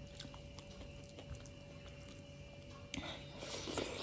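Fingers squishing and mixing moist rice with sisno (stinging-nettle) curry on a steel plate: small wet clicks and squelches, louder from about three seconds in, with mouth-chewing sounds, over a faint steady hum.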